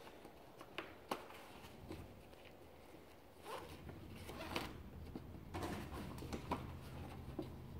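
Nylon webbing straps of a padded kayak seat being handled and pulled through their buckles: faint rasping swishes, with a few light clicks of the strap clips in the first second or so.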